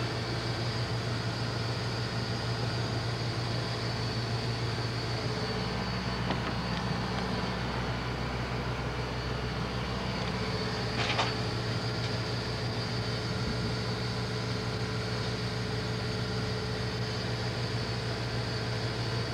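Steady noise of a steam locomotive heard from inside its cab, with a constant low hum and a faint high whine and no exhaust beats. A single brief sharp click comes about eleven seconds in.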